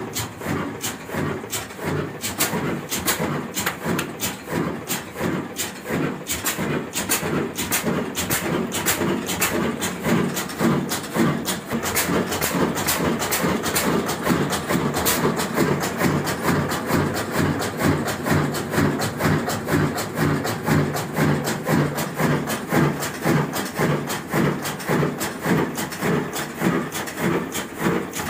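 A 24 HP Diamond single-cylinder horizontal diesel engine with a heavy flywheel spinning up during a cold start, its cylinder head being heated with a flame. It makes a rhythmic mechanical clatter of knocks that gets faster and more even about a third of the way in.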